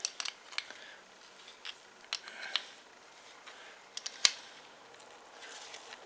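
A small open-end wrench tapping and clicking against the float bowl nut of a lawn mower carburetor to seat the bowl, in a series of light metallic clicks with one sharper tap about four seconds in.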